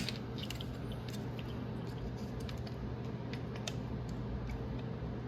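Light, scattered clicks and taps of a small screwdriver and tiny screws against the plastic fan shroud and frame of a graphics card, over a steady low hum.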